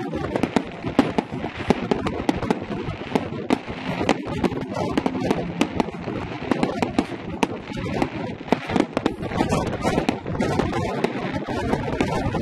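Fireworks display: aerial shells bursting overhead in a dense, continuous run of sharp pops, bangs and crackles.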